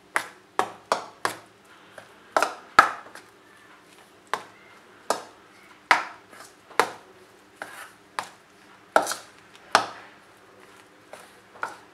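Metal spoon clinking and scraping against a stainless steel bowl while stirring flour into a dough, in a string of sharp, irregular knocks about one or two a second.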